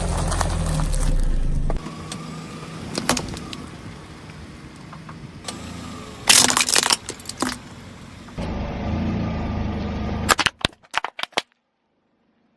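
Car engine running at low speed while its tyres roll over objects, with cracking and crunching bursts, the loudest about six seconds in and a run of sharp clicks near the end before the sound cuts out.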